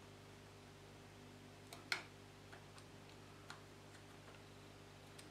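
Faint metal clicks and taps of an Allen key turning the Allen-head screws that clamp a motorcycle's front brake master cylinder to the handlebar switch unit, the sharpest click about two seconds in, over a faint steady hum.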